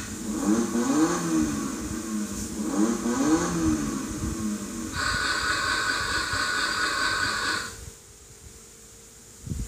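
Electronic engine-revving sound effect from the built-in speaker of a children's battery-powered ride-on car, playing as two runs of rising and falling pitch. It is followed by a steady high electronic tone for about three seconds, which stops near the end.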